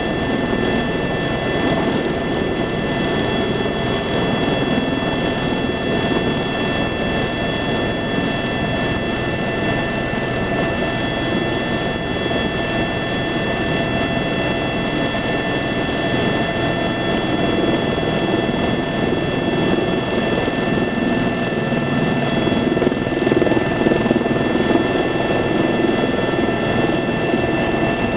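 Tour helicopter's turbine engine and main rotor running steadily, heard from inside the cabin: a steady high whine of several tones over a rotor rumble, swelling a little near the end.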